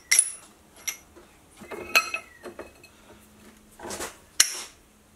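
Half-inch steel plate being handled and set into a steel milling-machine vise: a handful of sharp metal clinks and clanks that ring briefly. About four seconds in there is a short scraping slide, and right after it the loudest clank.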